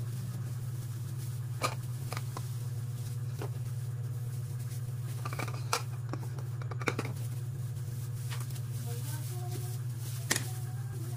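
A handful of short sharp clicks and taps several seconds apart, from a kitchen knife on a plastic cutting board and bowls being set down while processed cheese slices are cut, over a steady low hum.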